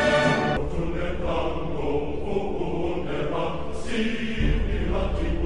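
Background music: a held chord cuts off about half a second in and gives way to a chanted vocal track.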